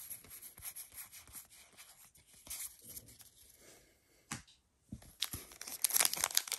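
Soft rustling and flicking of trading cards being handled, then from about five seconds in, the louder crinkling and tearing of a foil Pokémon booster pack wrapper being opened.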